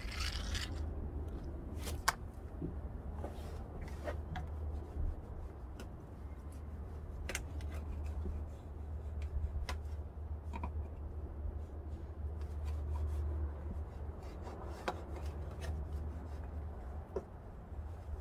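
Dental floss being sawed back and forth through the foam adhesive tape behind a chrome Honda badge: irregular rubbing and scraping with scattered small clicks, over a steady low rumble.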